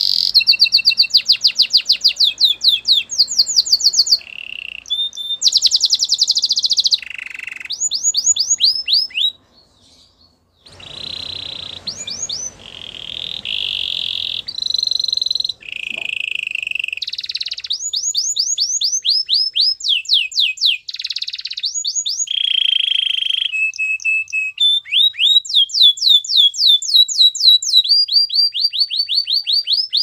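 Domestic canary singing: fast trills of rapidly repeated falling notes alternating with held whistled tones, high-pitched, with a short break about nine seconds in.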